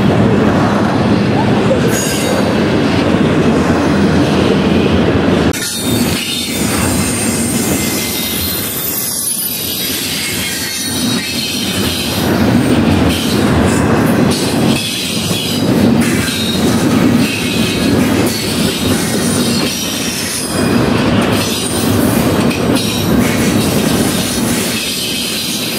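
Double-stack intermodal freight train's well cars rolling past, steel wheels rumbling and clacking steadily over the rails, with a thin high wheel squeal coming and going.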